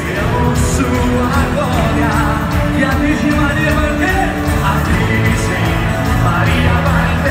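Live band playing with singing, heard from among the audience: steady bass and drums under a sung melody.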